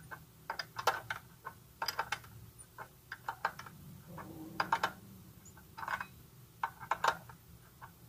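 Slack drive chain of a Honda CB300R being worked up and down by hand, its metal links clicking and clacking in short clusters about once a second. There is still plenty of slop in the chain.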